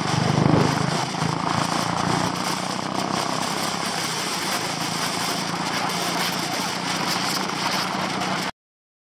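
Royal Enfield Bullet 500's single-cylinder engine running at steady cruising speed on the highway, mixed with wind and road rush, briefly louder about half a second in as an oncoming bus goes by. The sound cuts off abruptly near the end.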